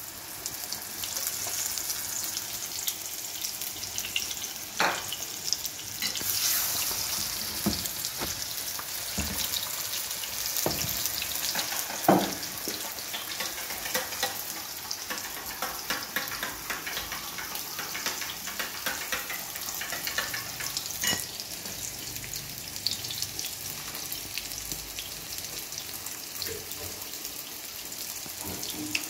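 Chapli kebab patties shallow-frying in oil in a flat pan: a steady sizzle with scattered pops of spitting oil, the loudest about twelve seconds in.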